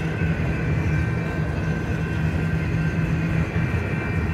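Double-stack intermodal train of loaded container well cars rolling past: a steady rumble of steel wheels on rail, with faint steady high-pitched tones above it.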